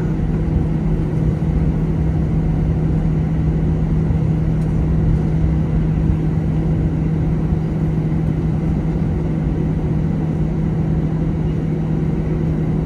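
Steady cabin noise of an Airbus A321 on the ground after landing: its twin jet engines at idle, with a constant low hum and rumble.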